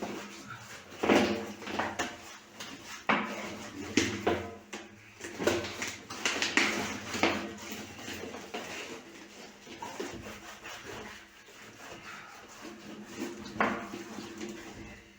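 Irregular knocks, clatters and scrapes of hand tools against the concrete rings of a well during seam repair with hydraulic plug mortar.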